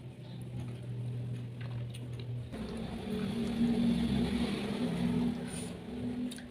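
A motor vehicle's engine heard from outside: a low hum that stops abruptly, then a swelling rumble that peaks and fades over a few seconds, like a vehicle pulling away or passing by. Faint clicks of eating lie under it.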